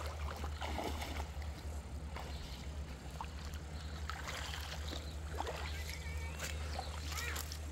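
Rushing river water: a steady low rumble throughout, with scattered small clicks and a few short chirps over it.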